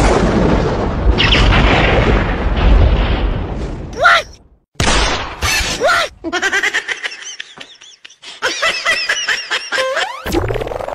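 Magic-spell sound effect: a long boom with a noisy rush that fades over about four seconds. Shorter effects follow, then a run of pitched calls and shouts.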